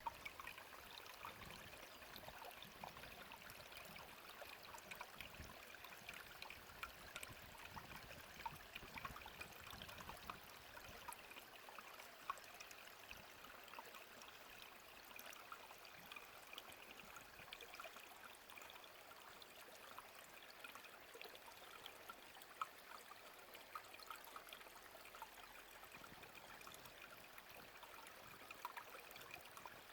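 Small mountain stream trickling and babbling over rocks, a faint steady water sound full of small splashes.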